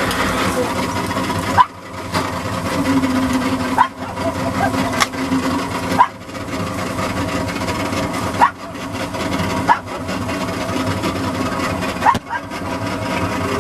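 Mullet boat's engine running steadily. About every two seconds a short sharp click comes with a brief dip in the sound.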